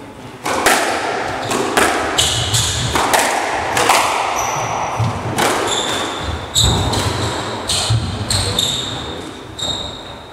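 A squash rally: the ball cracking off rackets and the court walls every half second to a second, with shoes squeaking in short, high chirps on the wooden floor.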